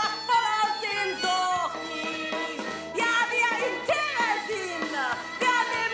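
A woman singing a German cabaret song to an operetta tune, with instrumental accompaniment.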